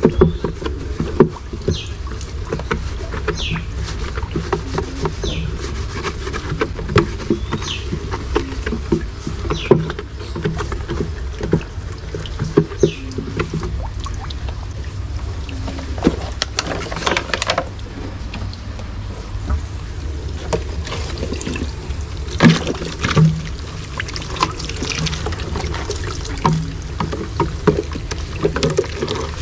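A plastic container being scrubbed and rinsed by hand in soapy water under a running hose: water trickling and splashing, with plastic rubbing, squeaking and knocking at irregular moments over a steady low hum.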